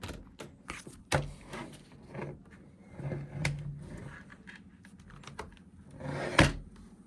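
Irregular clicks, taps and knocks of plastic laptop parts being handled and fitted together by hand, with a heavier knock about a second in and the loudest one near the end.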